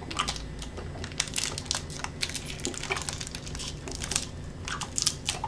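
An individually wrapped Hi-Chew fruit chew being unwrapped by hand: an irregular run of small crinkles and crackles from the wrapper.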